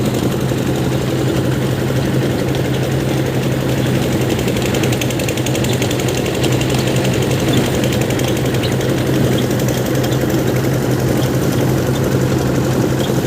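Engine-driven paddy thresher running steadily, a constant low engine hum with a fast rattle over it.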